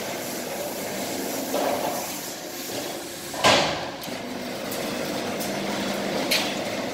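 Seven-line round-pipe beading machine running with a steady mechanical noise, with one loud sharp knock about three and a half seconds in and a few lighter clicks near the end.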